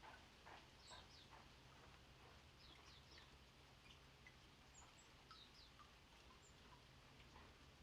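Faint calls of small songbirds: scattered short, high chirps that slide downward, several in quick pairs, with a few thin, very high notes.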